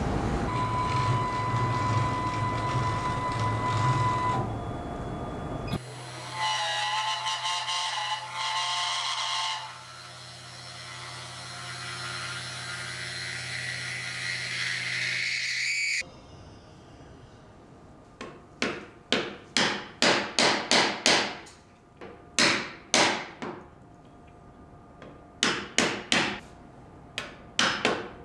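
For the first half, woodworking machinery runs: a steady humming machine, then an electric motor on a vertical machining head running with a steady whine. Then a hammer taps a chisel into a wooden block in quick runs of sharp, ringing strikes, chopping out a mortise.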